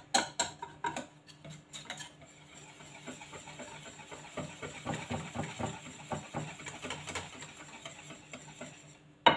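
Wire whisk stirring and lifting thick chocolate pancake batter in a ceramic bowl. Quick clicks against the bowl's side come in the first two seconds, softer clicks and scrapes follow, and there is one sharp knock near the end.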